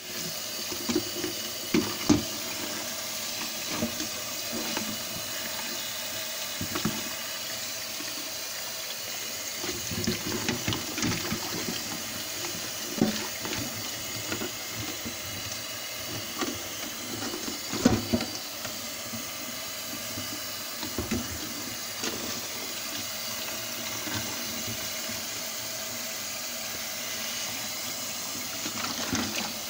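Kitchen faucet running into a pot of live blue crabs in a stainless steel sink, the water splashing steadily as the crabs are rinsed. Scattered sharp knocks and clatters sound throughout, loudest about two seconds in and again a little past the middle.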